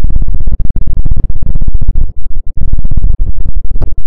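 Fast, very loud scratching directly on an ASMR microphone, many short strokes a second, done as an ear massage.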